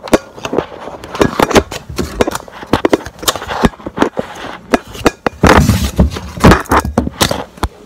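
Handling noise on a phone's microphone: a dense run of rubs, taps and knocks from a hand and clothing against the phone. The heaviest, deepest bumps come about five and a half to six and a half seconds in.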